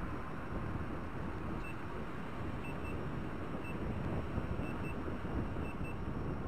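Wind rushing over the microphone on a fast-moving MB-14GTX electric unicycle. From about two seconds in, short high electronic beeps come roughly once a second, some in pairs: the unicycle's speed warning beeping at around 22–23 km/h.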